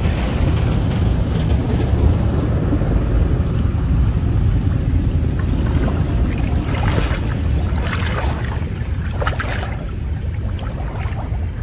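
Water sloshing and splashing around a person wading waist-deep while hauling in a fishing net, over a steady low rumble of wind on the microphone. Three short splashes come in the second half.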